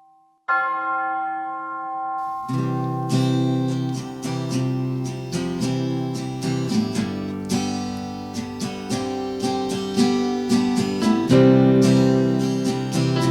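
Acoustic guitar strumming chords in a steady rhythm, coming in about two seconds in after a held, ringing chord that opens the music: an instrumental worship-song intro.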